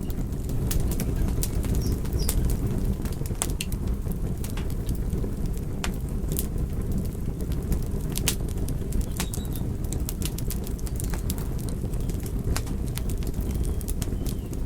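Wood fire burning in a fireplace: a steady low rush from the flames, with frequent sharp crackles and pops of the logs at irregular intervals.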